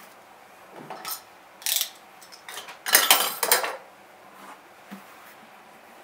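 A heavy side of stiff 7–8 oz leather being unrolled and flattened on a wooden table: a few short rustling, flapping crackles, with the loudest clattering cluster about three seconds in.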